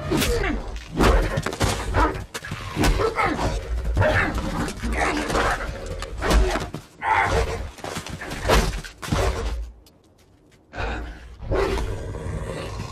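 Film fight sound effects: a dog-like alien beast snarling and growling among quick hits and crashes, in a string of short bursts with a brief quiet gap about ten seconds in.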